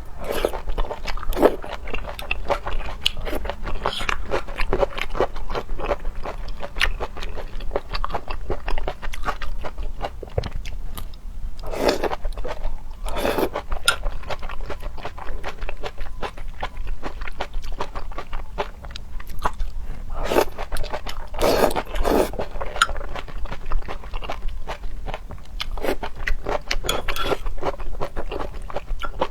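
Close-miked eating of seafood: wet chewing and crunching mouth noises, with a few louder, longer smacks or slurps along the way.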